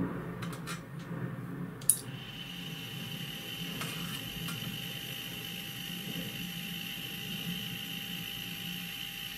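Metal toggle switch on a Boeing stall warning module's front panel clicking as it is worked, with the sharpest click about two seconds in. After that click a steady high-pitched electrical whine sets in over a low hum.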